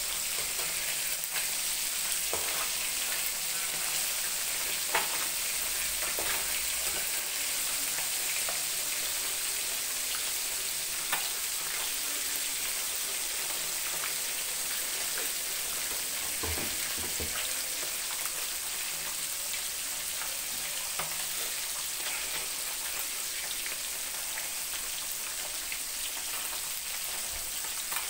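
Small whole fish deep-frying in hot oil in a wok: a steady sizzle with constant crackling and a few louder pops.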